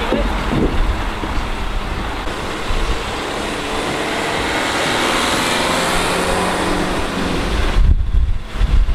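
Wind buffeting the microphone in heavy low rumbles, strongest near the start and again about eight seconds in, over the steady running of a telehandler's engine.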